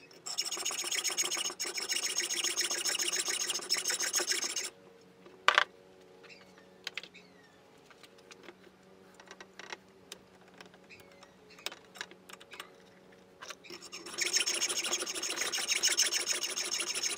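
Hacksaw cutting through a stainless steel bolt held in a bench vise, with quick back-and-forth rasping strokes. The sawing stops after about four and a half seconds, and a single sharp knock follows a moment later. Scattered light clicks come next, then the sawing starts again about three seconds before the end.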